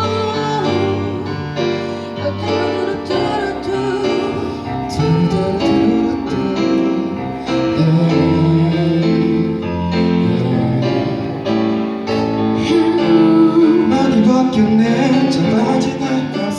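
Live band playing an R&B-pop song: keyboard and drums, with a singer's voice over them.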